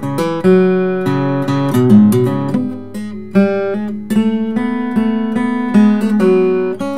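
Ralph Bown OM steel-string acoustic guitar with a torrefied Sitka spruce top and Amazon rosewood back and sides, played fingerstyle. A picked melody rings over a steady bass line.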